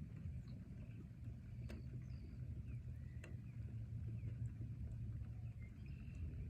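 Forest ambience: a steady low rumble with faint bird chirps and a couple of soft clicks.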